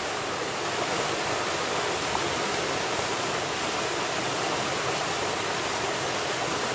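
Small waterfall pouring over a rock face, a steady rush of water.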